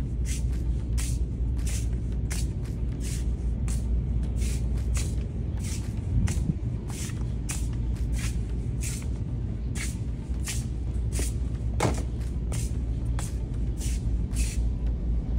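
Walking noise from a phone carried through a shop aisle: soft swishing steps or rustles about twice a second over a steady low rumble, with one sharper click late on.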